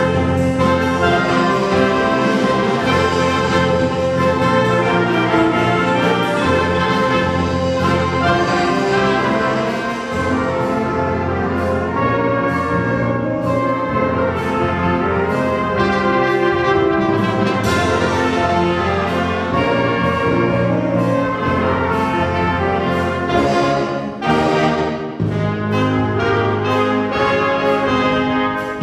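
Wind band playing a rock-style concert band piece, brass and woodwinds together. There is a brief break about 24 seconds in, after which the low brass comes back in stronger.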